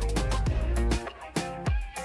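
Background music with a steady drum beat and a prominent bass line.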